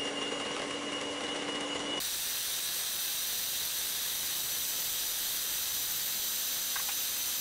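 Electric mixer with twin beaters running steadily, churning lumpy cottage cheese in a plastic bowl. About two seconds in, its whir turns brighter and hissier, with a high steady whine.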